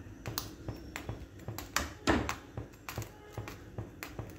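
Steel spatula clicking and scraping against a tawa griddle while pressing and turning a jowar roti: a string of light, irregular metallic clicks, with two louder ones about two seconds in.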